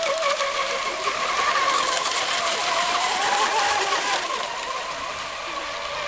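Several radio-controlled racing hydroplanes running flat out, their motors a high, wavering whine that drifts up and down in pitch over a hiss of spray. The sound eases slightly after about four seconds.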